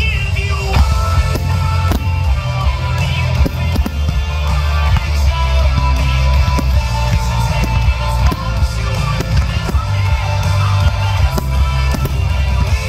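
Music, with aerial firework shells bursting underneath it.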